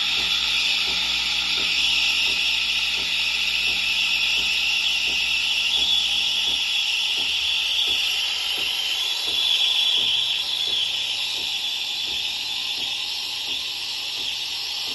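Super-automatic espresso machines frothing milk for cappuccino: a steady steam hiss with a pump humming and ticking underneath. The pump note stops about six and a half seconds in, and another low hum starts near ten seconds.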